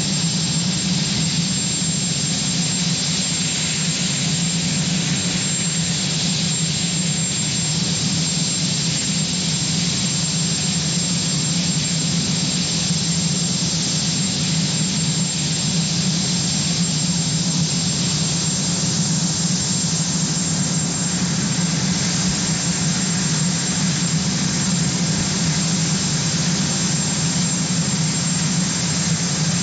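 Turbine engines of the Marine One helicopter, a Sikorsky VH-3 Sea King, running steadily on the ground: a constant high whine over a deep, even hum.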